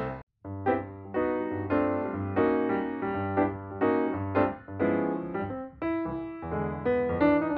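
Background piano music: a run of keyboard notes struck one after another over a steady bass line, after a brief dropout at the very start.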